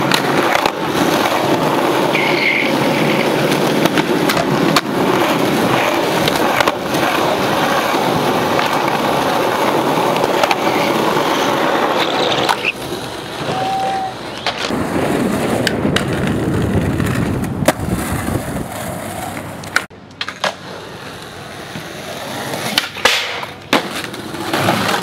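Skateboard wheels rolling on concrete, a steady gritty rumble, broken by sharp clacks of the board hitting the ground and ledges as tricks are tried.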